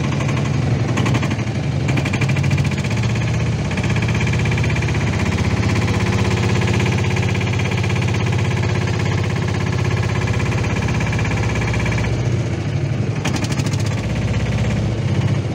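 Small boat engine running steadily close by with a fast, even thudding; its note changes slightly about twelve seconds in.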